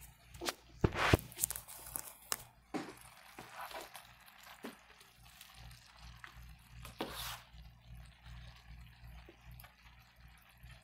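Food in a wide pan sizzling and steaming on high heat as its excess water cooks off, while a spatula stirs through it with soft squelching and several sharp knocks against the pan, the loudest about a second in.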